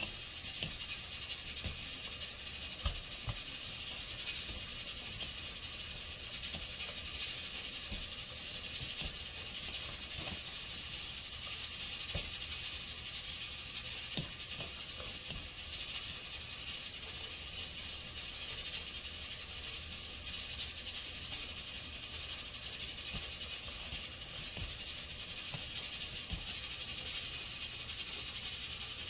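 Hands tossing seasoned spinach in a plastic mixing bowl: soft squishing and rustling with a few light knocks against the bowl, over a steady high hiss.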